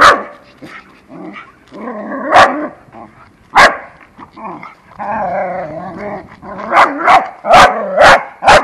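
Dog barking: about eight sharp barks, spaced out at first and then in a quick run near the end, with a longer wavering whine about five seconds in.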